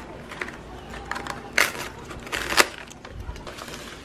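Clear plastic clamshell takeout container handled and pried open by hand: scattered plastic crackles and a few sharp clicks.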